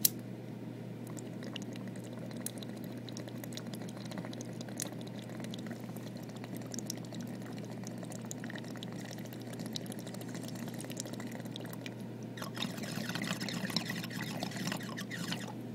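Water trickling and dripping, with many small clicks, over a steady low electrical hum. It turns louder and more crackly for about three seconds starting some twelve seconds in.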